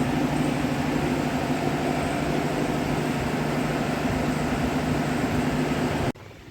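Steady low mechanical hum of running machinery, holding several steady tones, which cuts off suddenly near the end.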